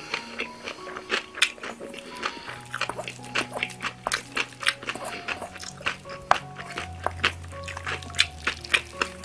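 Metal spoon clinking and scraping in a stainless steel bowl as bibimbap is mixed and scooped, with close chewing and mouth noises, over soft background music with held notes and a steady bass.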